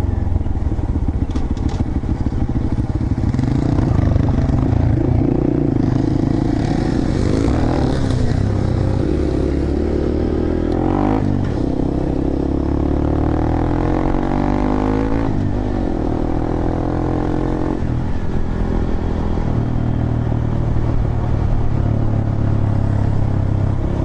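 Small single-cylinder trail motorcycle engine running under way, its pitch rising and falling several times as the throttle is worked, with some clatter from the bike over the trail.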